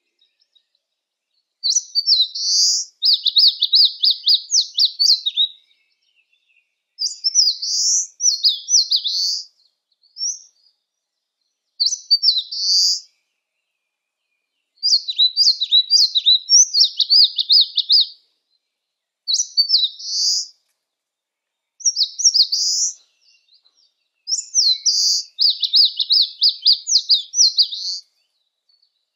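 Eastern crowned warbler singing: phrases of quick high notes, each one to three seconds long, repeated with short pauses of one to two seconds between them.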